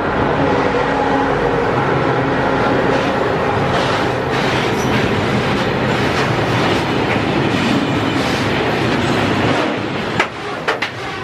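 Freight train of grain hopper wagons passing close by: continuous rumble and rattle of the wagons' wheels on the rails, with a few sharper knocks near the end.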